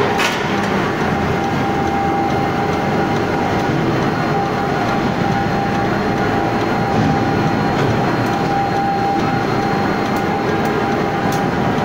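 Steady din of forging-line machinery: a dense mechanical rumble at an even level, with a thin steady tone running through it and a few faint clicks, but no distinct hammer blows.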